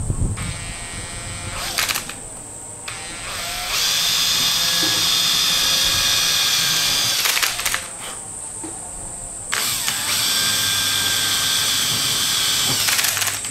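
Electric drill running in bursts as it bores holes through the plastic sleepers of model railway track. It gives two short runs, then two longer runs of three to four seconds each with a pause between.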